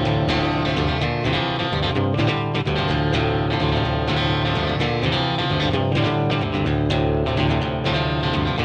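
Instrumental break in a rock song: guitars and bass over a steady drum beat, with no vocals.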